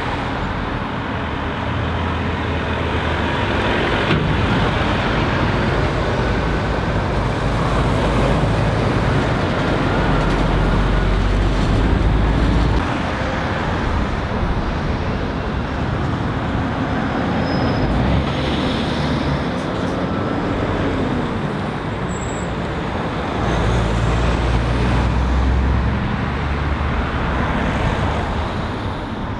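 Road traffic at a roundabout: cars and heavy diesel lorries running past, engine rumble and tyre noise rising and falling as each vehicle goes by. The loudest swells come about ten to thirteen seconds in and again around twenty-five seconds.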